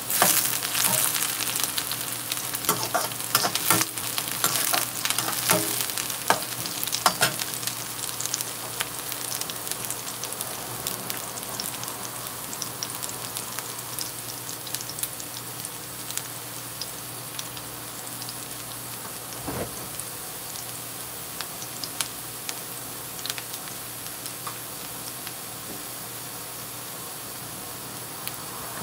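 Chopped onions and cumin seeds sizzling in hot oil in a wok. For the first several seconds a metal slotted spoon stirs them, clicking and scraping against the pan; after that there is a steady sizzle with only occasional ticks.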